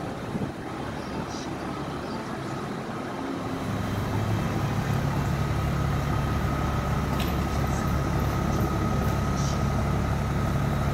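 A motor running with a steady low hum and a thin high whine over it. It comes up in level about three and a half seconds in, then holds steady.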